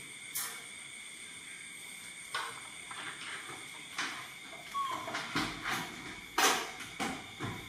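A baby monkey shifting about on cloth and a stuffed cushion: a run of short, irregular rustles and scuffs, loudest a little after six seconds in, with one brief squeak midway. A faint steady high whine sits underneath.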